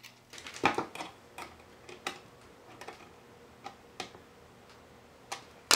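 Irregular small clicks and taps of hand assembly: a lock washer and nut going onto a panel-mount switch in a 3D-printed plastic housing, handled with needle-nose pliers. One louder click comes near the end.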